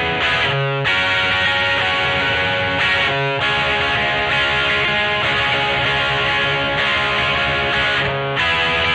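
Greco EG-550 electric guitar played through a Peavey Vypyr VIP 2 modelling amp with a distorted tone: sustained chords that change every few seconds, with short breaks between them.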